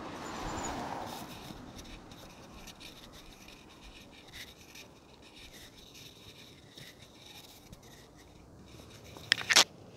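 Handling noise on a hand-held phone's microphone: faint rubbing and scratching with scattered light ticks, a swell of noise in the first second, and two sharp knocks close together near the end.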